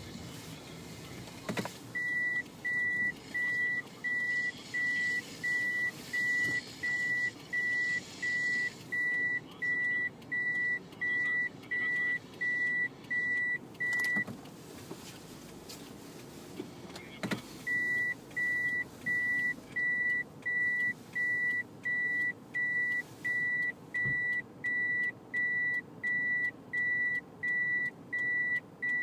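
A car's in-cabin electronic warning beeper sounding a steady high-pitched beep about one and a half times a second over the low cabin rumble. It starts about two seconds in, stops for a few seconds after the middle, and resumes.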